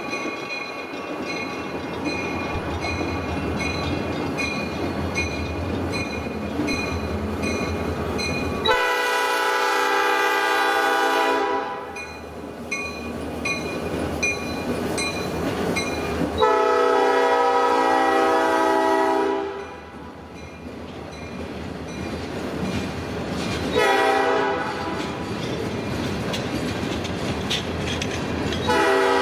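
Diesel freight locomotive passing, its engine and wheels rumbling steadily, sounding its multi-chime air horn in two long blasts, one short, and the start of another long one at the very end: the long-long-short-long grade-crossing signal.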